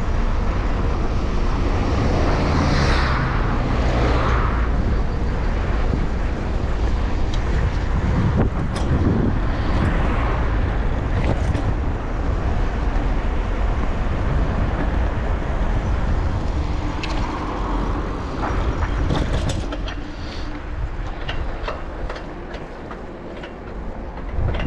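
Wind rumbling on the microphone while riding a bicycle, with road noise and a few sharp clicks; it eases off for the last few seconds.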